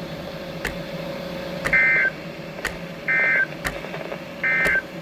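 Emergency Alert System end-of-message data bursts: three short screeching bursts of warbling digital tones, each about a third of a second long and a little over a second apart, signalling the end of the severe thunderstorm warning. A faint click ticks about once a second underneath.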